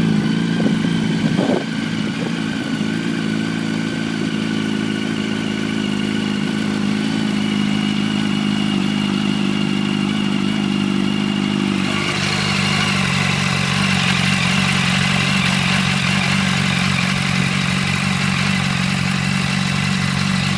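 2006 Yamaha R1's inline-four engine idling steadily through an Arata full titanium exhaust as it warms up after an oil change. About twelve seconds in, the idle note shifts slightly and a hiss joins it.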